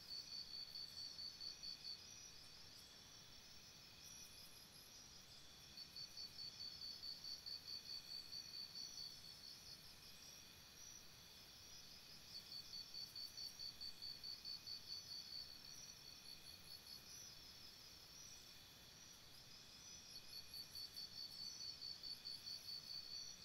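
Faint insect chirping: a high pulsed trill in bouts of two to four seconds that come back about every six seconds, over a faint steady hiss.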